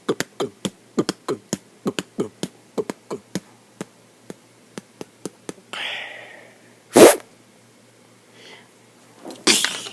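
Beatboxing: a quick run of sharp percussive mouth sounds, about four a second, thinning out after about five seconds, then a short hiss and a single loud burst about seven seconds in, with another burst near the end.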